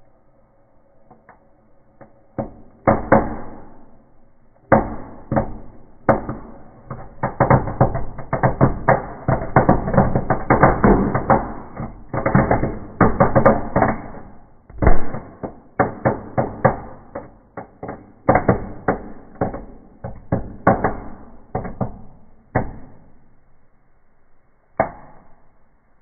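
Small fireworks crackling in a fireplace: a rapid run of sharp pops and cracks that starts about two and a half seconds in, is densest in the middle and thins to a few last pops near the end.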